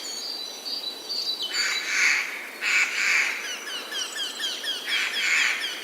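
Forest birds in spring: three loud, harsh, scratchy calls, about a second or two apart, over a songbird's rapid run of short falling chirps, about three a second, that starts near the middle.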